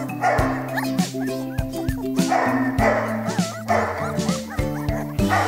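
Background music with a steady beat, with young puppies whimpering and yipping over it in short rising and falling squeals.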